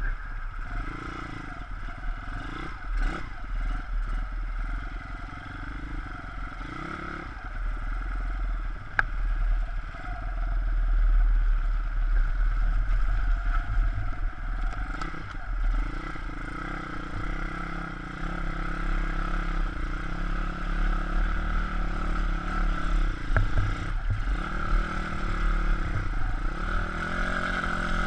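A 160 cc pit bike engine revving up and down as the bike is ridden through mud, with the pitch rising and falling repeatedly.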